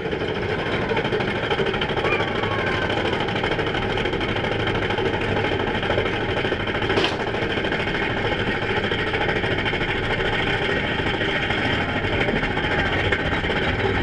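Mine-train roller coaster being hauled up a lift hill: a steady, fast mechanical clatter of the lift chain under the cars, with one sharp click about seven seconds in.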